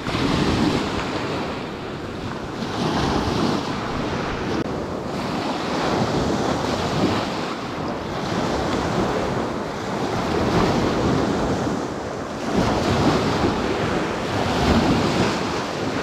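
Gusty wind on the microphone over lake waves washing onto the shore, swelling and easing every few seconds.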